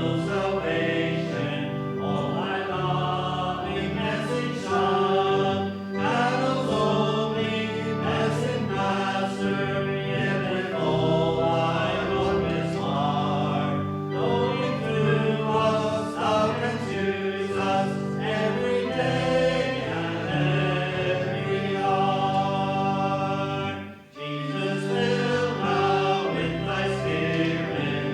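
Congregation singing a hymn over sustained instrumental chords, with a short break between phrases about 24 seconds in.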